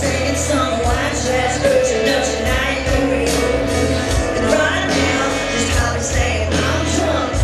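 Live country-rock band playing through a concert PA, with electric guitars, bass and drums under a female lead vocal.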